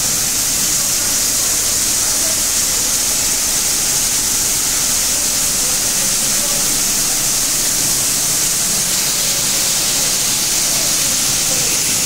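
VibroMAX vibrating-sieve grain cleaner with air aspiration running: a steady, high hiss of the shaking sieves, the aspiration fan and the grain flow, with no change.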